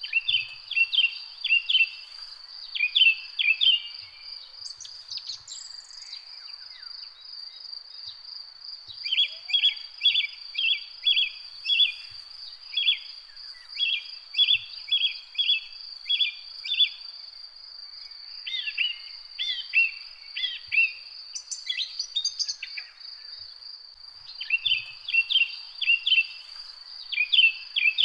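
Garden ambience: a steady high-pitched insect trill runs without a break under bird chirps. The chirps come in short groups, some in even runs of about two a second, with a few gliding calls about two-thirds of the way through.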